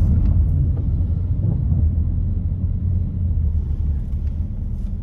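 Low, steady rumble of road and engine noise inside a moving car's cabin, easing off toward the end.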